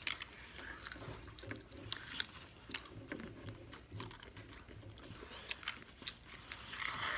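A person eating peanuts: quiet chewing and crunching, with irregular small clicks.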